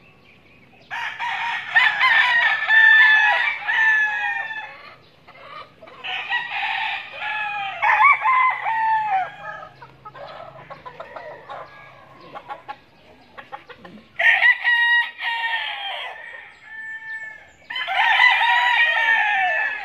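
Several gamefowl roosters crowing one after another, their crows often overlapping, in four loud bouts with fainter crows in the gaps between.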